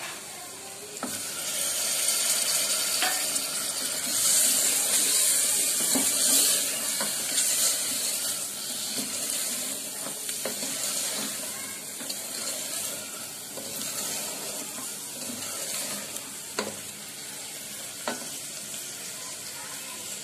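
Raw mutton pieces searing and sizzling in hot oil with fried onions and spices in a pressure cooker, just after going in, stirred with a wooden spatula that now and then knocks against the pot. The sizzle swells about a second in and eases off in the second half.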